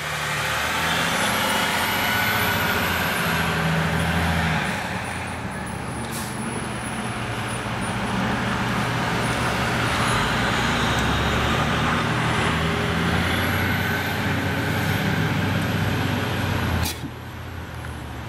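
Heavy vehicle engine running with road and traffic noise, swelling twice as the vehicles pass, then dropping abruptly after a sharp click near the end.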